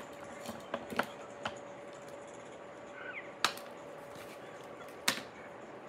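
Sharp clicks and taps as deco mesh is handled and pressed flat on a glass-topped craft table, the loudest two about three and a half and five seconds in, over a steady hum.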